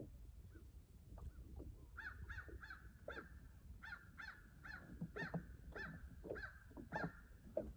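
Geese honking: about a dozen short calls, faint, starting about two seconds in and stopping near the end.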